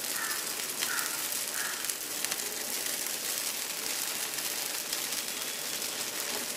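Whole wheat dosa batter and oil sizzling steadily on a hot tawa, with faint crackles.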